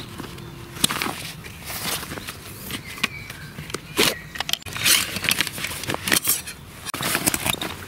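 Fabric rustling of a camouflage pouch with scrapes and sharp knocks as a nested cook kit of cups and stove parts is pulled out of it by hand. The loudest knocks come about halfway through.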